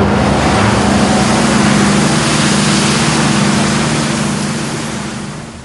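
Engine of industrial yard machinery running steadily under a loud, dense rushing noise. It fades away near the end.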